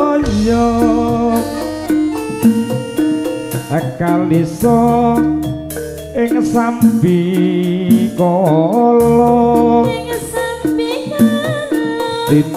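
Javanese jaranan gamelan music: metallophones ringing out a steady pattern over drum strikes, with a sung melody line that bends in pitch.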